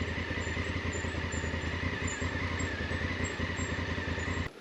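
Honda Africa Twin motorcycle engine running steadily, with a steady high whine above it. The sound cuts off abruptly just before the end.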